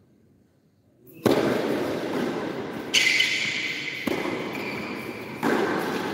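Tennis racket strings striking the ball on an indoor court: a serve about a second in, then three more rally shots about one to one and a half seconds apart. Each hit is sharp and rings on in the hall's echo.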